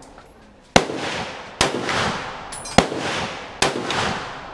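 Four M1 Garand rifle shots, roughly a second apart. Each is a sharp crack followed by a long echoing decay.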